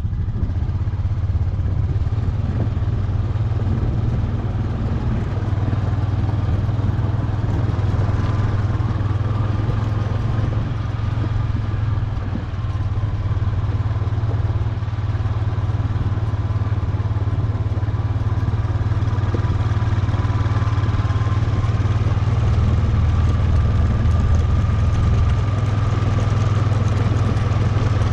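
ATV engine running steadily as the quad rides along a gravel track: a constant low drone with a fainter whine above it.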